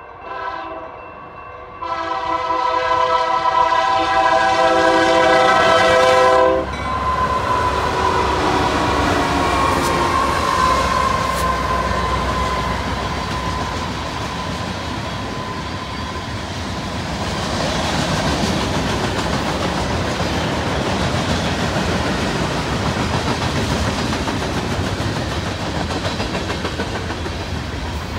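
Union Pacific diesel locomotive horn sounding for a grade crossing: a short blast, then a long loud blast from about two seconds in that cuts off sharply. The lead locomotives then rumble past, followed by a long string of freight cars, mostly tank cars, rolling by with wheels clacking over the rail joints.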